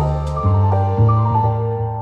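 Background music: sustained chords over a low bass line, with no percussion.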